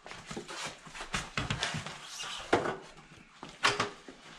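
Irregular knocks, clatter and rustling from hands-on construction work in a small framed room, with two sharper knocks about two and a half and three and a half seconds in.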